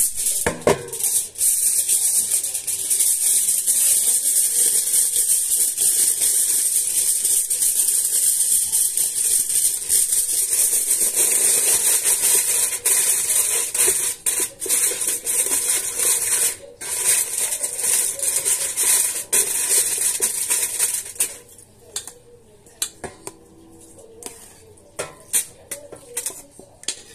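Aluminium foil crinkling and rustling as it is pressed into a black cooking pot, a dense hiss of crackles for about twenty seconds. After that come a few scattered light clinks and knocks as a stainless steel bowl is handled over the pot.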